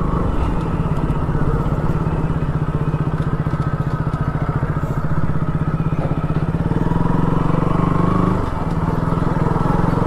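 Sport motorcycle's engine running at low, steady revs as the bike rolls slowly along a dirt lane, with a short easing-off about eight and a half seconds in.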